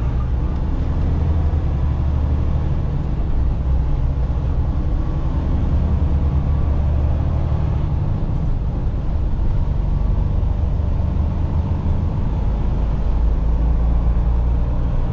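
Semi truck's diesel engine and road noise heard from inside the cab: a steady low drone as the truck picks up speed.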